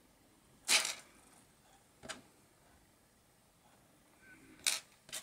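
Clicks and short rustles from small electronic components (resistors with wire leads, a capacitor, a small black part) being picked up and handled on a tabletop: a slightly longer rattle about a second in, a single click about two seconds in, and two more clicks near the end.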